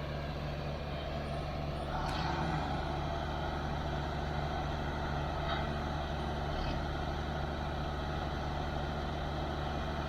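Heavy diesel machinery, a backhoe and a logging skidder, running steadily under load as the backhoe pushes the skidder, a little louder about two seconds in. A short high squeal sounds about two seconds in, with a few faint ticks later.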